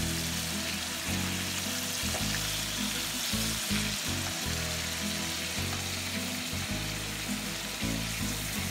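Marinated tilapia pieces sizzling steadily as they shallow-fry in hot oil in a pan, over background music.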